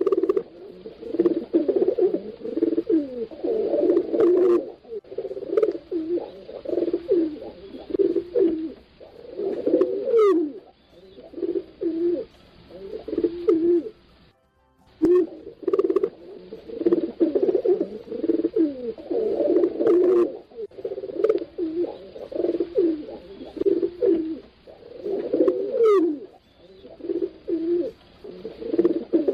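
Several pigeons cooing at once, their low calls overlapping in a dense, continuous chorus. The sound drops out briefly about halfway through.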